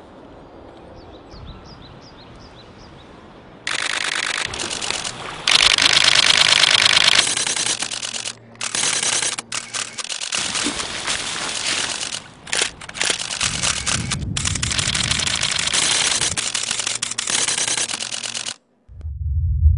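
Camera shutters firing in rapid continuous bursts, a dense stream of clicks like machine-gun fire. It starts about four seconds in, runs in long volleys with a few short breaks, and stops shortly before the end.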